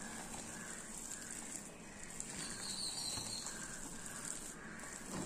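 Thick urad dal batter with chopped onion and chilli being stirred with a metal spoon in a steel bowl: faint, steady wet stirring and scraping.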